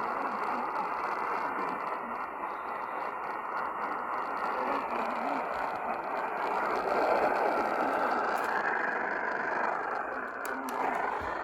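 Radio receiver static: a steady hiss cut off above the treble, with no tones or voices, as from a radio tuned to a weak or noisy signal. A few faint crackles come near the end.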